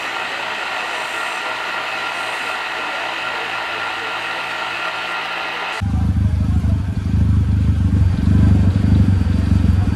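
A bench grinder running with a metal part held against its spinning wheel: a steady grinding noise with a faint motor whine. About six seconds in it cuts abruptly to a car engine idling, a deep rumble from its twin exhaust pipes that gets louder a second later.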